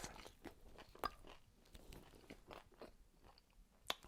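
Faint chewing and crunching of chicken close to the microphone, with two sharper crunches, about a second in and near the end.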